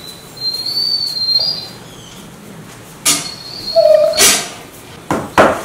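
Golden retriever making its morning noises to wake its owner: a high, thin, wavering whine about half a second in, then a brief squeak and several short, sharp noisy sounds in the second half.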